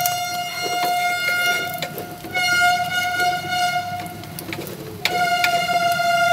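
A loud, horn-like tone at one steady pitch, sounded as three long blasts with short gaps between them, over light clicks and scrapes of a fork and knife against a nonstick frying pan.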